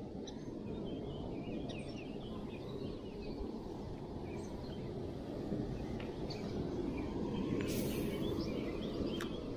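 Steady low outdoor rushing noise, with faint bird chirps over it.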